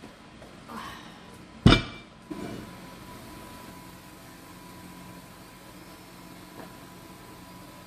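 Enameled cast iron cocotte being handled on a granite counter: one sharp, loud metal clank with a brief ring nearly two seconds in, then a softer knock, over a faint steady hum.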